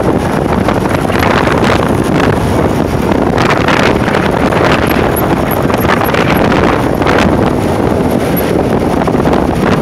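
Wind rushing and buffeting over the microphone of a moving motorcycle, with road and engine noise underneath.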